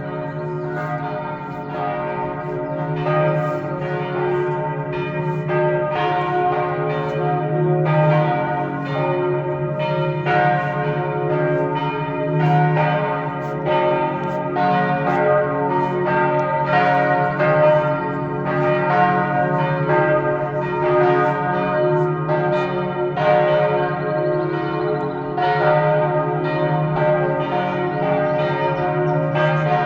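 Church bells pealing at noon, struck in quick succession about twice a second, the strokes overlapping and ringing on.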